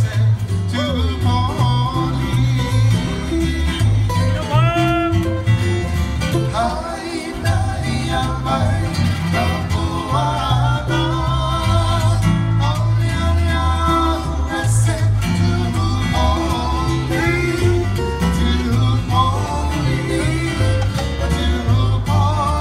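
Live Hawaiian hula song played on strummed and plucked acoustic guitars over a steady bass line, with a voice singing the melody with vibrato.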